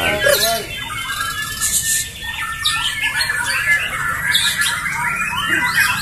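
Several caged white-rumped shamas (murai batu) singing against each other at once, a dense tangle of rapid chirps, whistled glides and sharp squeaks: the fast, aggressive song bursts that bird-contest fans call 'tembakan'.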